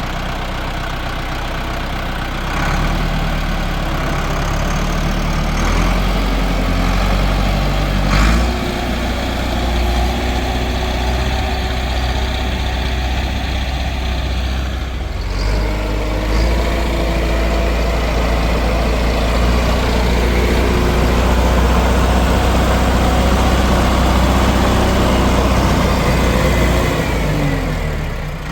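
Tractor engine running and working under load, its revs stepping up and down. A sharp knock about eight seconds in, a brief dip about halfway, and the revs falling away near the end.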